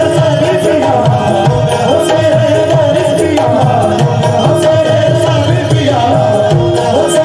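Qawwali music: harmonium playing the melody over a steady hand-drum rhythm.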